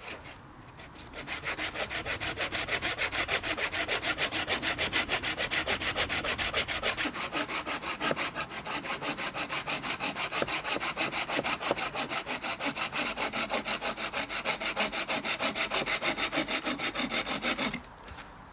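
Hand saw cutting through a dead pine branch in quick, even back-and-forth strokes, starting about a second in and stopping suddenly near the end.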